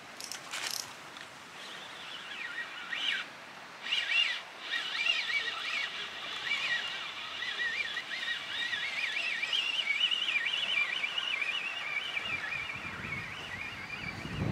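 Fixed-spool fishing reel being cranked to wind in a hooked fish. Its gears give a continuous whine that wavers in pitch with the cranking and starts about two seconds in, after a few clicks and knocks as the rod is taken up.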